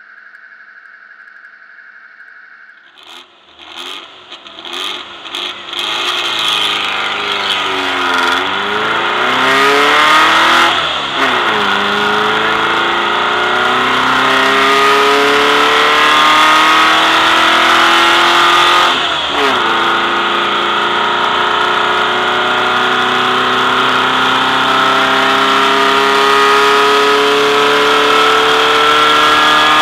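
VW race car's engine heard from on board. After a few quiet seconds it gives a few short uneven bursts, then pulls hard, its pitch climbing steadily through the gears, with two upshifts about eleven and nineteen seconds in.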